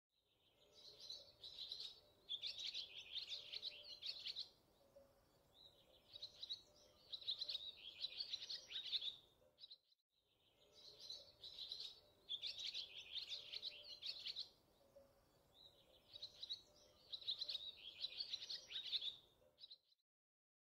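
Faint birdsong: bursts of quick, high chirps in clusters with short gaps, a ten-second recording played twice over as a looped soundtrack.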